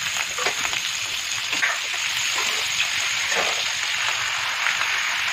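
Raw boneless chicken pieces sizzling in hot oil in a nonstick pan as they are tipped in: a steady hiss with a few soft knocks.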